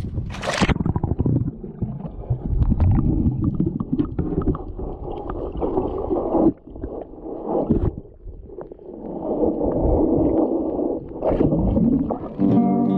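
A splash as the camera goes under the sea about half a second in, then muffled underwater sloshing and bubbling as hands and a child move through the water. Near the end a ringing guitar chord takes over.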